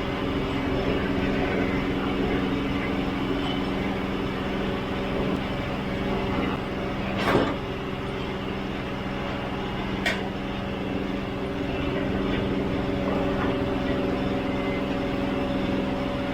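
Norwood HD36 portable band sawmill running steadily, its engine driving the band blade through a knotty spruce log. Two short, sharp, louder sounds stand out in the middle, about three seconds apart.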